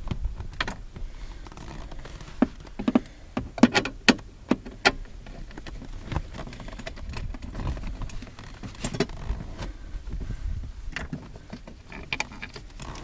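Scattered sharp clicks and knocks of a hand driver working on the bolts of a steel dash brace and against the plastic trim, while the knee bolster bracing bolts are loosened. The clicks come thickest a few seconds in and again partway through.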